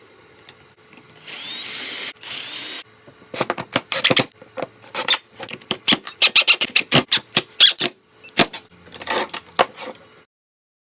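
A power drill runs in two short bursts with a whine that swoops up and down in pitch, followed by a quick run of sharp clicks and knocks of tools on the workpiece.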